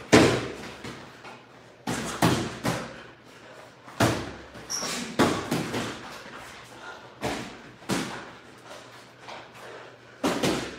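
Boxing gloves landing punches during sparring: irregular sharp smacks, some single and some in quick combinations of two or three.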